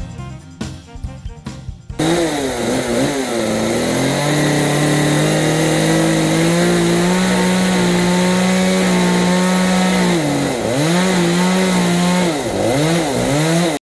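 Two-stroke gas chainsaw running at high revs while carving into a wooden log. Its engine note rises and holds, then dips and recovers several times near the end, and the sound cuts off suddenly.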